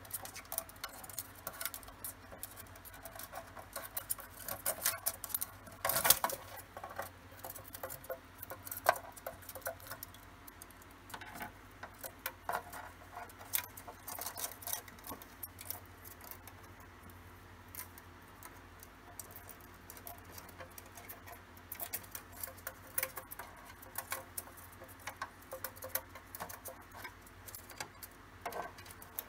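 A cockatiel's beak and claws tapping, scratching and clicking on a plastic Sylvanian Families toy house: irregular small clicks and scrabbling, with a louder knock about six seconds in.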